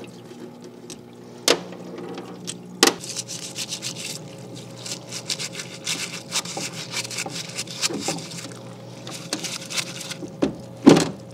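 Solvent parts washer's pump running with a steady hum while a small steel gear is scrubbed under the washer's flow-through brush, giving scratchy rubbing and splashing of solvent. There are a few sharp knocks, the loudest near the end.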